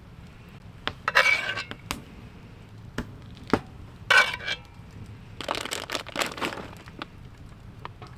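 Cooking gear being handled at a campfire: three rough scraping, crinkling bursts with single sharp cracks between them, as the toasted sandwich is taken off the fire.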